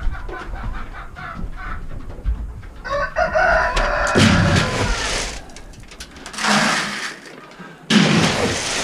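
Chickens clucking, with a rooster crowing about three seconds in, a held call of around two seconds. Loud knocks and scrapes close to the microphone break in a few times in the second half.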